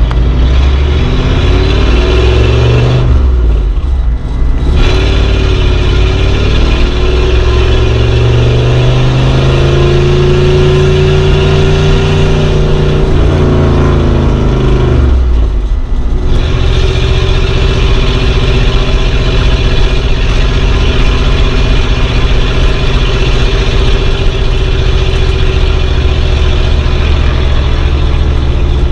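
A 1950s car's engine running under way, its pitch climbing and falling as it is driven. The engine note briefly drops away twice, about four seconds in and again about sixteen seconds in.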